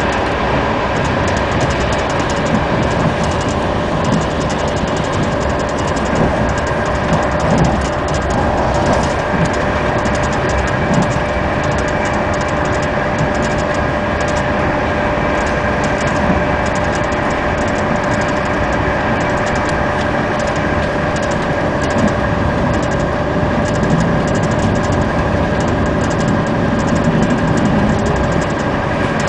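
Passenger train running at speed, heard from inside the carriage: a steady rumble of wheels on the rails with a constant tone over it and light, rapid clicking.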